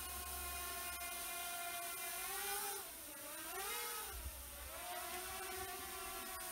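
Hubsan Zino Mini Pro quadcopter flying overhead, its propellers giving a steady whine that drops in pitch and rises back again about three to four seconds in as the drone manoeuvres.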